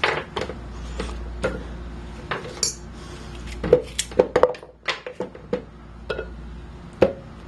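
Kitchen clatter: a string of sharp clinks and knocks of metal cookware and utensils being handled, bunched together about four to five seconds in and with one more near the end.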